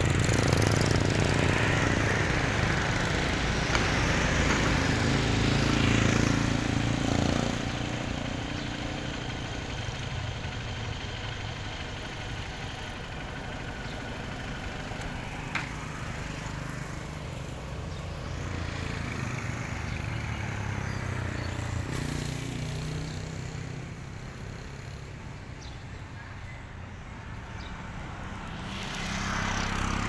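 Roadside traffic: motor vehicles passing on the road, with an engine loud for the first seven seconds, then dropping away sharply, and others swelling past later and again near the end.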